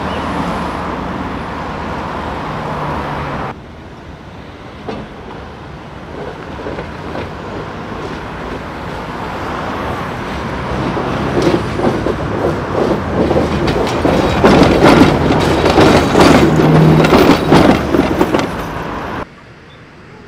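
Road traffic with a car passing, then a Tatra K2YU articulated tram approaching and passing close. Its wheels clatter and knock over the rails, growing louder to a peak a few seconds before it cuts off.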